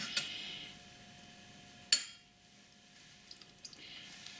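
A metal teaspoon clinking against a stainless steel saucepan: sharp clinks at the start and one louder clink about two seconds in, then only faint small sounds.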